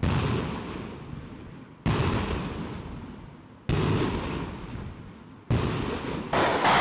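Truck-mounted multiple rocket launcher firing a ripple of rockets: four launches about two seconds apart, each a sudden blast that fades slowly as the rocket flies away. A louder, denser stretch of noise starts near the end.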